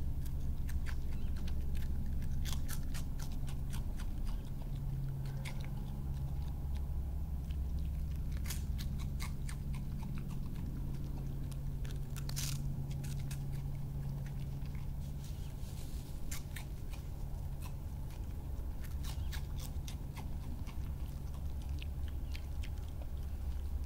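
European badger crunching and chewing a prawn cracker: many sharp, irregular crunches, over a steady low hum.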